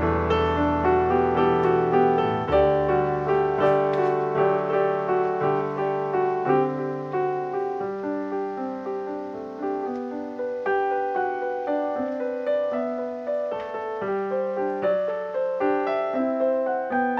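Background piano music, a steady flow of single notes and chords with deeper bass notes in the first couple of seconds.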